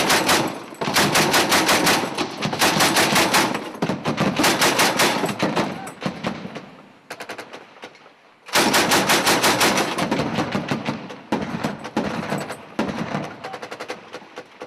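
Automatic machine-gun fire in long, rapid bursts of shots. It thins to scattered shots about midway, then resumes with another long burst and shorter bursts near the end.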